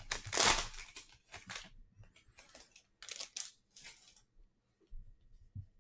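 A baseball card pack's wrapper being torn open and crinkled: a loud rip at the start, then several short crinkling bursts over the next few seconds. After that, only a few faint soft bumps.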